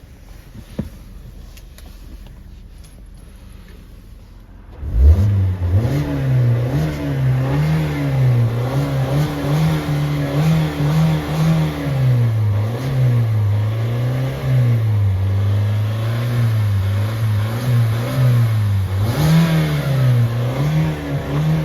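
A click, then about five seconds in a car engine fires up and runs, its pitch rising and falling over and over as it is revved.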